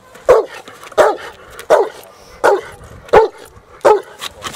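Rottweiler barking at the protection-work helper in front of it: six loud barks spaced evenly about two-thirds of a second apart.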